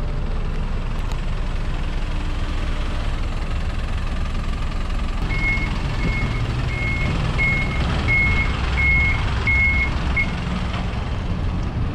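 Small fuel-delivery truck's engine running as it maneuvers close by. Halfway through, its reversing alarm sounds eight even high beeps, about one and a half a second, then stops.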